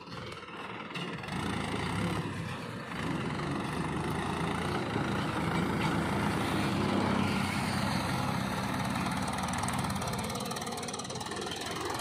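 Mahindra tractor's diesel engine running as it pulls a trolley loaded with earth; it grows louder over the first couple of seconds and then holds steady.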